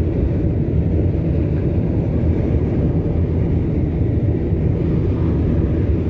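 Steady low rumble of a moving car heard from inside its cabin: tyre and road noise with the engine, closed windows.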